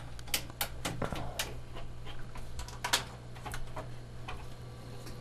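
Irregular light clicks and taps, a few every second, over a steady low hum.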